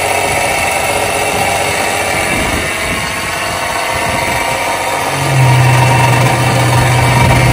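Sea-Doo Switch engine idling steadily while it is flushed with garden-hose water, the first stage of the engine flush. About five seconds in, a strong steady low hum joins it and the sound gets louder.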